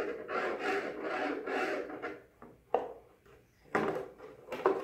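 Quick scraping strokes on a plastic helmet shell, about three a second, for the first two seconds, then a few sharp knocks and clicks.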